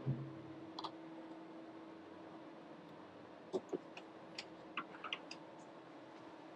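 Scattered small clicks and taps from handling a multimeter and its test probes during electrical testing: one about a second in, then a cluster of quick clicks in the second half, over a faint steady hum.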